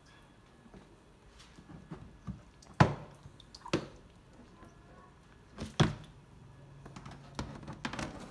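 Knocks and thumps against a clear plastic storage box holding a crocodile monitor: several light taps, with three louder thumps a second or two apart in the middle.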